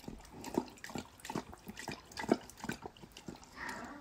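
Puma lapping water from a metal bowl: quick, irregular wet laps and splashes, about three or four a second.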